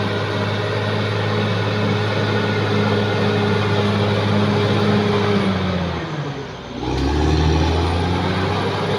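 Caterpillar D6R XL bulldozer's six-cylinder diesel engine running steadily at working revs. About six seconds in, the engine note falls and dips, then climbs back to full revs about a second later.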